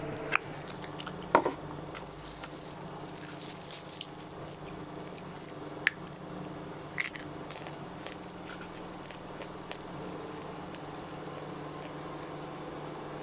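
Lump natural chalk being bitten and chewed close to the microphone: a few sharp crunches, the loudest about a second in and again near six and seven seconds, with softer crumbly ticks of chewing between them.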